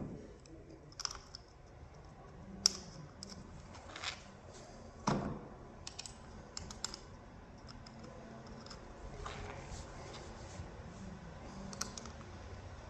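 Screws being started by hand into a heavy-duty hinge on a steel door: scattered small clicks and taps, a couple of them sharper, from the screws and metal parts being handled.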